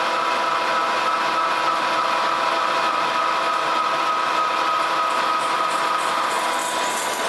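American Pacemaker engine lathe taking a roughing cut on a steel disc with an Iscar CNMG carbide insert: the machine running with the hiss of the cut and a steady whine, which fades near the end.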